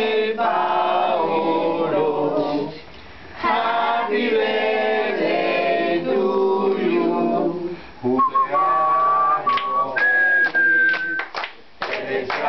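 A group of party guests singing a birthday song together. Near the end come two long held high notes, the second one higher, and then clapping starts.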